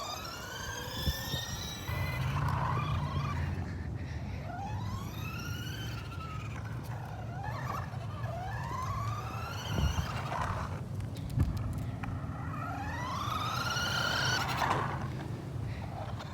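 Remote-control toy car's electric motor whining, its pitch climbing and falling again in repeated sweeps of a second or two as the car speeds up and slows down, over a low steady hum.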